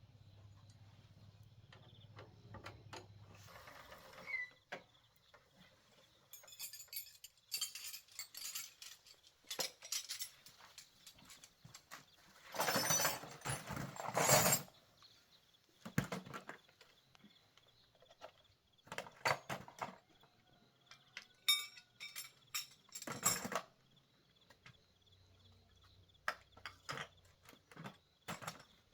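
Scattered clinks and knocks of things being handled, with a louder scraping, rustling stretch about halfway through and another short one near the end.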